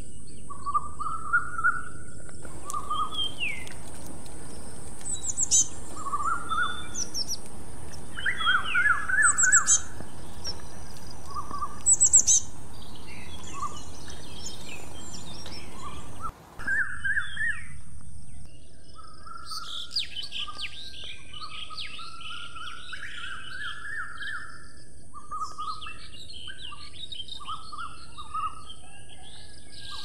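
Wild songbirds chirping and singing: short chirps and quick falling whistles over a steady high hiss. About halfway through the sound cuts out for a moment, and a busier, softer chorus of twittering birds follows.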